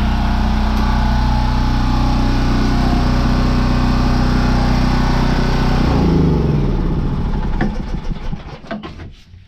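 Power pipe-threading machine running steadily while cutting threads on a pipe, then switched off about six seconds in, its motor winding down in falling pitch, followed by a few light knocks.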